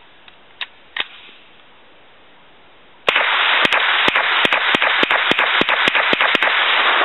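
Group Industries short-barreled semi-auto Uzi fired in a fast string, about fifteen shots at roughly five a second, starting about three seconds in over a loud continuous rush of noise. A few light handling clicks come in the first second.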